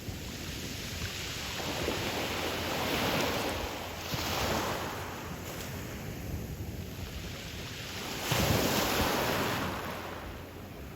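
Ocean waves breaking and washing up on a pebble beach, rising and falling in several surges, the loudest about eight seconds in.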